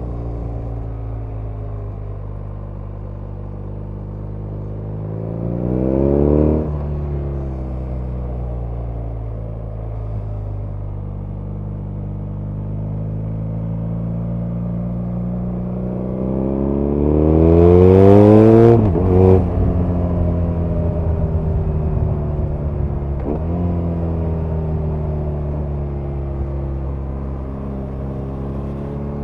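BMW R nineT's 1,170 cc boxer twin running under way. Its note climbs under acceleration about six seconds in and drops back, then rises in a long pull to its loudest around eighteen seconds before dropping sharply. It starts climbing again at the very end.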